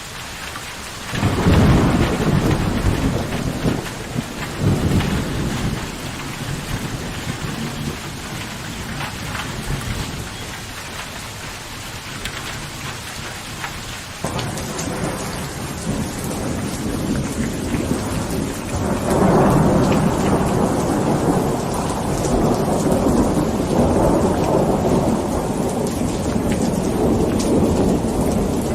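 Steady rain falling, with thunder: a sudden loud peal about a second in, a smaller one a few seconds later, and a long rumble of thunder through the last third.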